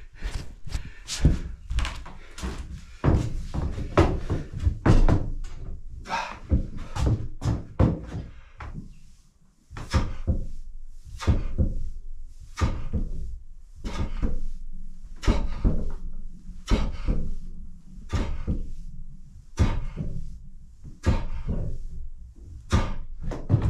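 Repeated irregular thuds and knocks, about one or two a second, from barbell leg exercises (squats and lunges) in a small home gym, with a short lull partway through.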